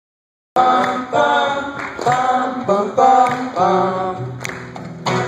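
Man singing live into a microphone with a strummed acoustic guitar, the sound cutting in abruptly about half a second in.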